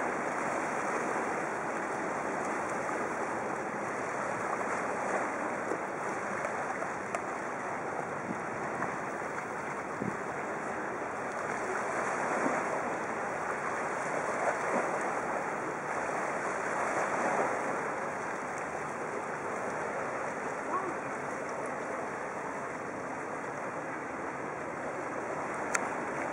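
Small waves washing against a rocky shore, with wind on the microphone: a steady rushing that swells and eases every few seconds.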